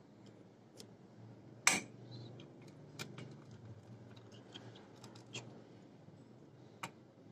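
A handful of sharp clicks, the loudest about a second and a half in, as a push button is pressed and an 8-pin relay and a contactor switch on, the relay holding the contactor in.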